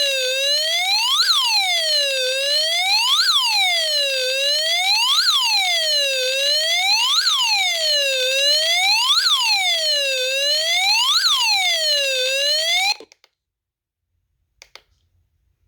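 Electronic wailing siren alert tone, rising and falling about once every two seconds. It cuts off suddenly about thirteen seconds in, followed by a couple of faint clicks.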